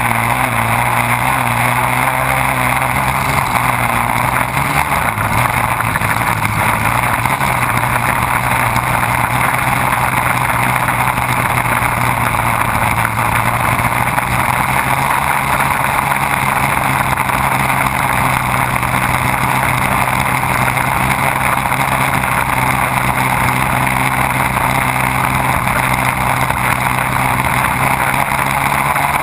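Race boat running at speed: a steady engine drone under a loud, even rush of water spray and air. The engine pitch wavers a little in the first few seconds, then holds steady.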